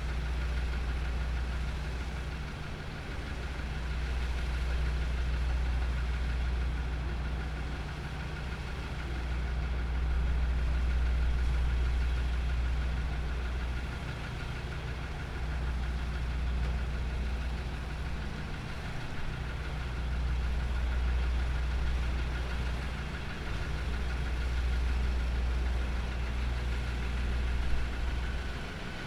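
Diesel train engine idling with a steady low hum, the level swelling and easing every few seconds.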